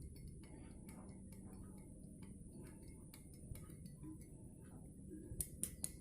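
A plastic spoon ticking lightly against a glass as it stirs honey into the drink, at a fairly steady pace, with a few louder taps near the end.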